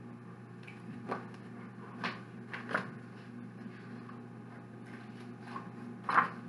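A picture book being handled and its pages turned: a few short rustles and taps, the loudest near the end as a page flips over, over a steady low hum.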